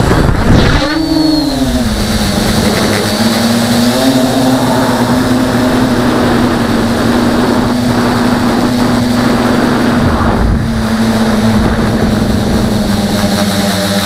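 Tricopter's three electric motors and propellers spinning up hard at takeoff, the pitch swinging up and back down in the first two seconds, then holding a steady buzzing hum as it climbs and flies. Heard up close from the camera mounted on the craft.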